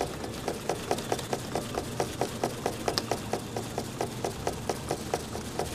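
Rapid, even knocking and rattling of a cardboard box, about six knocks a second, over a low steady hum, as the box is jostled for a bumpy ride.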